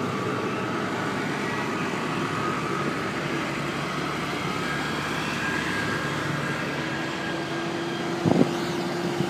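Diesel engines of farm tractors running steadily as several tractors drive past one after another, with a short knock about eight seconds in.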